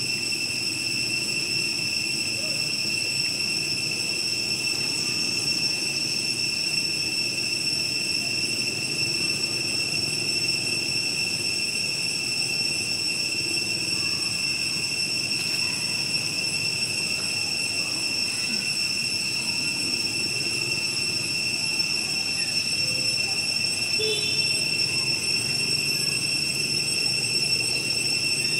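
Steady high-pitched insect drone, unbroken throughout, over a low rumbling background.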